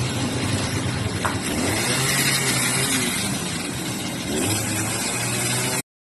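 Storm rain and wind making a steady, dense hiss, with a motor vehicle's engine humming low underneath. The sound cuts out abruptly near the end.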